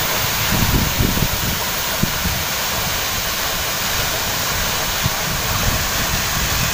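Tall twin waterfall pouring into its plunge pool: a steady, unbroken rush of falling water, with a few low bumps about a second in.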